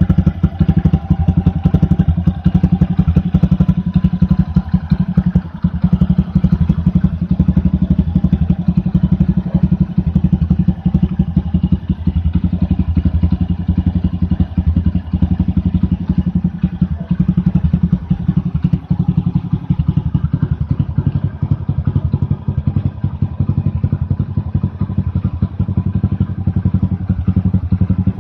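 Honda Super Cub 90's small single-cylinder four-stroke engine running steadily through a Moriwaki titanium Monster muffler, a rapid, even exhaust pulse with no revving.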